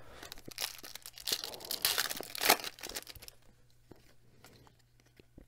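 Foil wrapper of a baseball card pack being torn open and crinkled by hand, with crackling for about three seconds. After that come fainter soft rustles as the stack of cards is handled.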